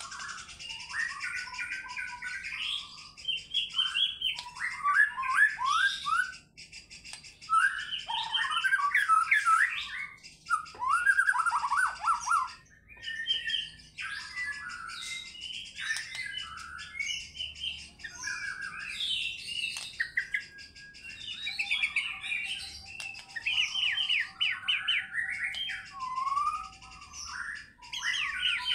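White-rumped shama singing a varied song of rapid trilled phrases and gliding whistles, broken by short pauses, with a fast, high, buzzy chatter behind much of it.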